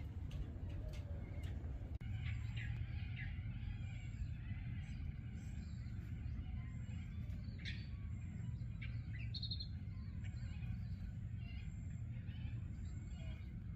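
Wild birds calling with scattered short chirps and a brief rapid trill about nine seconds in, over a steady low rumble.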